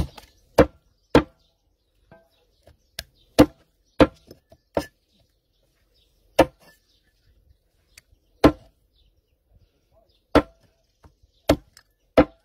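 Large cleaver chopping raw chicken on a round wooden chopping block: about a dozen sharp chops at an uneven pace, several coming in quick pairs.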